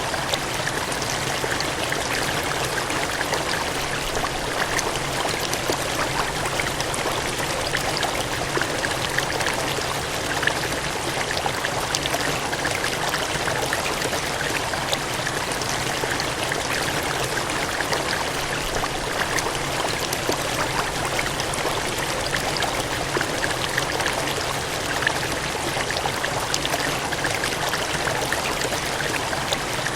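Water gushing and cascading in a steady, continuous rush, full of small splashes.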